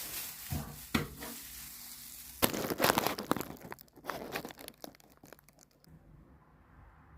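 Paper crumpling and scrubbing, the rustle of wiping fireplace ash onto the glass of a stove door to polish it. A steady hiss at first, then a louder burst of dense crackling about two and a half seconds in that dies away in the last second or so.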